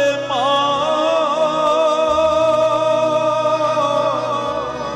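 Devotional Punjabi kavita: a male singer holds one long note with a wavering vibrato over steady instrumental backing, easing off near the end.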